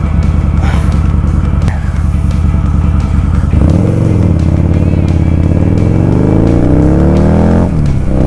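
Motorcycle engine running low and steady, then pulling away about three and a half seconds in, its revs climbing through a gear, dropping briefly at a shift near the end and climbing again.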